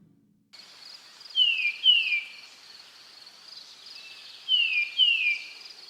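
Nature ambience: a steady high-pitched insect trill, with a bird giving short falling calls in two pairs, one pair about a second and a half in and another about four and a half seconds in.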